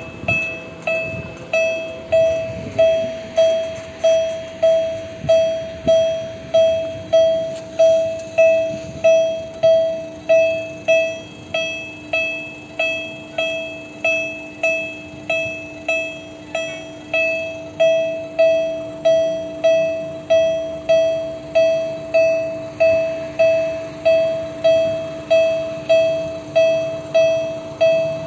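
Railway level crossing warning bell ringing: a single repeated note, about one and a half strikes a second, each one ringing out, while the crossing is closed for an approaching train.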